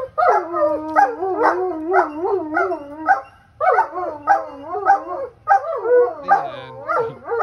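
Irish wolfhound howling in long, wavering 'talking' calls that rise and fall in pitch, with a short break a little after halfway.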